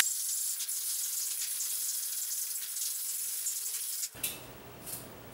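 Ice and liquor being shaken in a glass-and-tin Boston cocktail shaker: a steady hissing sound that stops abruptly about four seconds in.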